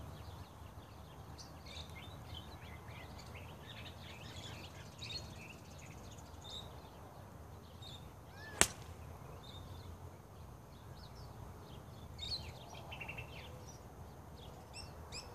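A single sharp click of a golf club striking the ball on a full swing, about halfway through. Birds chirp faintly throughout.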